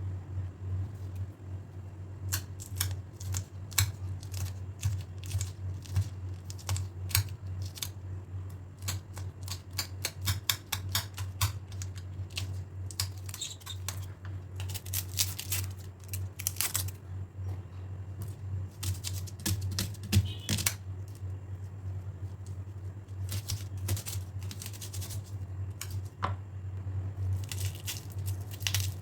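Irregular sharp clicks and knocks of kitchen preparation work, coming in quick clusters in places, over a steady low hum.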